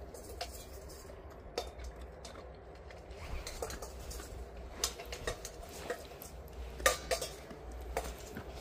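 A dog eating from a stainless-steel bowl: irregular clinks and rattles as its muzzle and the food knock against the metal, with a few louder clinks about two-thirds of the way in.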